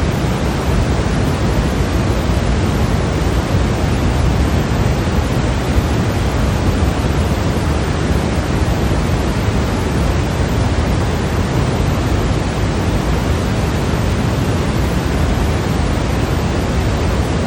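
Steady synthetic white noise for sleep masking: an even, unchanging hiss with no events, heavier in the low end than in the highs.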